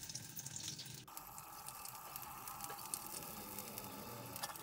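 Faint, steady sizzling with light crackling from oil heating in a frying pan on a gas burner; the texture changes abruptly about a second in.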